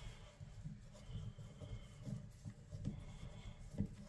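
Faint scraping and a few light clicks of a screwdriver turning the small end-cap screw into a Delta shower valve handle.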